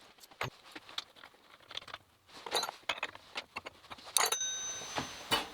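Metal clinks and clicks of tools being handled at a milling machine as the tooling is changed for counterboring. About four seconds in, a louder steady hiss with a faint whistle starts suddenly, lasts about a second and ends with a click.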